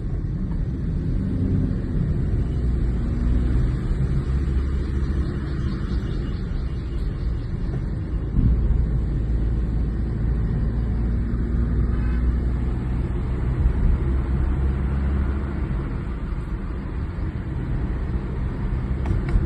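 A steady low rumble, with a brief louder knock about eight seconds in.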